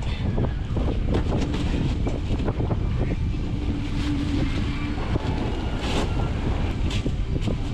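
Wind rumbling on the microphone aboard a fishing boat at sea, with scattered short knocks and clatter throughout and a brief low hum in the middle.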